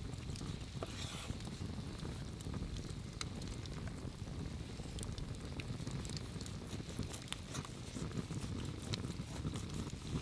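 Puukko knife slicing through raw beef on a wooden board, with scattered small clicks over a steady deep background rumble.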